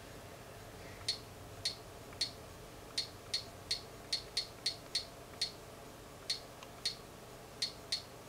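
About fifteen sharp, identical clicks at an uneven typing pace, starting about a second in: keys being pressed one after another.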